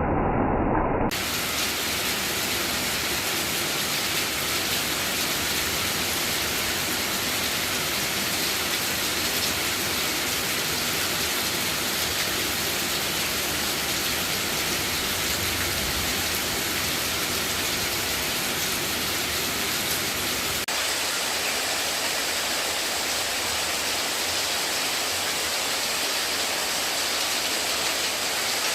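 Steady rushing water noise, an even hiss with no rhythm. The first second is a duller, lower rumble that cuts off abruptly, and the low part of the water sound thins out about two-thirds of the way through.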